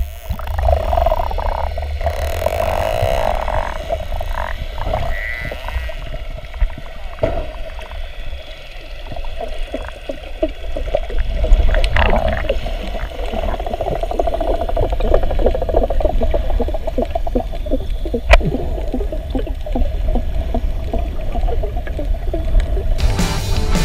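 Bottlenose dolphins underwater: rapid trains of clicks and buzzing pulses, with a brief higher call about halfway through, over a low rumble of water moving past the camera housing.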